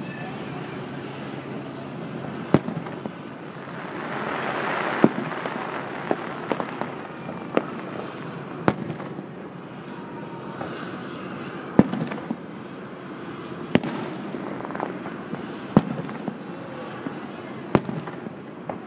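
Aerial firework shells bursting: about a dozen sharp bangs, one every one to two seconds, over a steady background of outdoor noise, with a brief swell of rushing noise about four seconds in.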